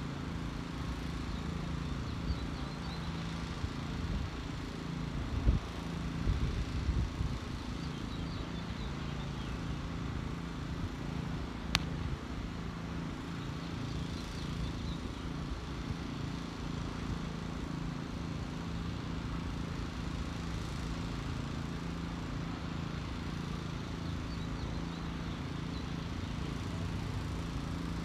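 A steady low mechanical hum, like an engine or machinery running. A few low bumps, typical of wind on the microphone, come a few seconds in, and a single sharp click comes about halfway through.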